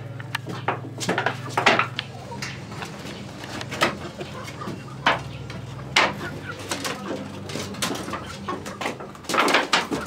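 A flock of domestic hens clucking and calling in a coop, many short irregular calls overlapping, over a steady low hum.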